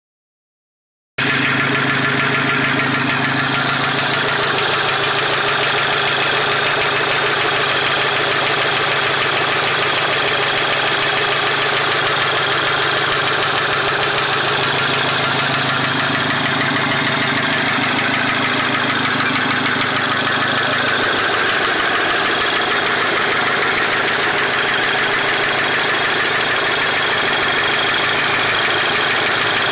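Volkswagen Golf GTI Mk5's turbocharged four-cylinder engine running steadily with a repetitive knocking sound, starting about a second in.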